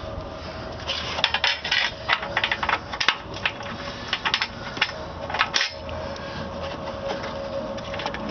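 Bolt hardware being handled: a 13 mm bolt and washer clinking and rattling against metal as they are set by hand into the strut bar, in quick clusters of small clicks, with a faint steady hum underneath.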